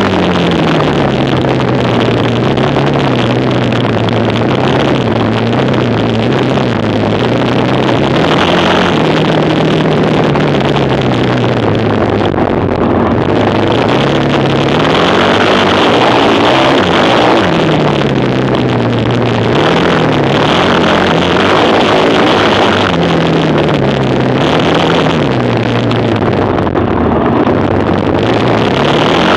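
Quad bike engine running hard, its pitch rising and falling again and again as it revs up and eases off.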